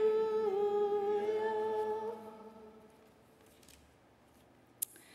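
Singing of the last drawn-out 'hallelujah' that ends the sung Gospel acclamation, dying away about two seconds in. Then a quiet room with a single sharp click near the end.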